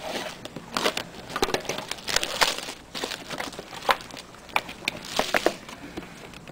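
Plastic wrapping and packaging crinkling and crackling in irregular bursts with sharp clicks as a sealed box of trading cards is unwrapped and opened.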